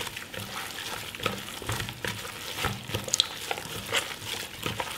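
Gloved hands kneading raw ground beef with jalapeños and cheese in a plastic bowl: irregular wet squishing and rubbing of disposable plastic gloves.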